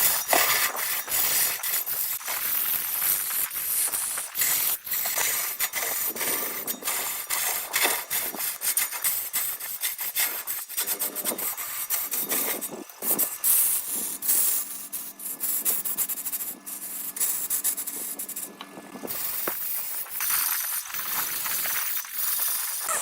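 Wood being cut on a lathe: a turning tool scraping against the spinning workpiece, a continuous rough rasping full of small irregular clicks.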